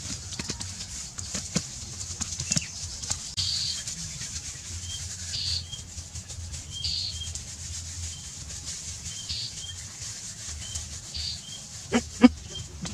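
Wet hands rubbing and patting a soft mud lining smooth, with scattered small slaps, while a bird gives a short high call every second or two. Two sharp knocks near the end are the loudest sounds.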